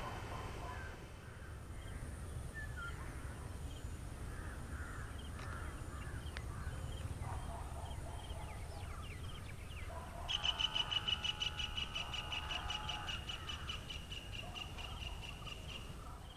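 Birds calling over a steady low rumble. About ten seconds in, a loud, fast run of high pulsed notes starts, several a second, with lower bending calls under it, and goes on for several seconds.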